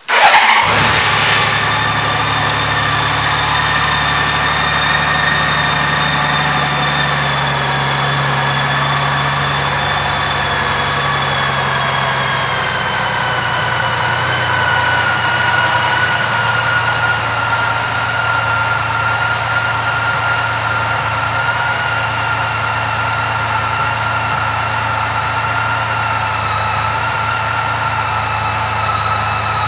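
2015 Honda Valkyrie's 1,832 cc flat-six engine starting up and then idling steadily. The idle drops slightly lower about halfway through.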